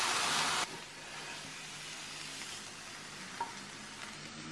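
Salmon burgers and vegetables sizzling in a frying pan as a wooden spatula stirs them; the sizzle cuts off abruptly under a second in, leaving quiet room tone with a single light tap near the end.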